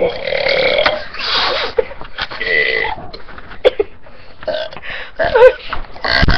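A boy burping out loud on purpose: several long, drawn-out burps one after another, each about a second long, then shorter ones.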